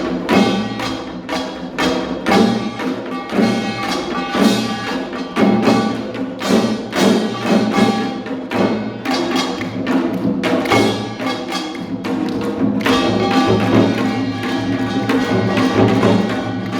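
Live music with rapid, regular percussion strikes over sustained pitched instruments.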